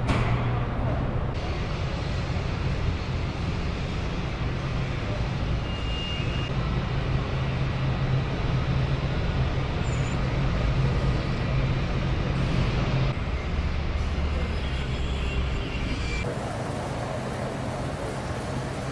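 Assembly-plant machinery noise: a steady mechanical din with a low hum that shifts abruptly a few times.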